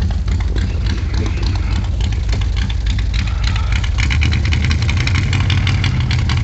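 Car engine idling steadily, with a rapid, even pulsing. The low note grows stronger about four seconds in.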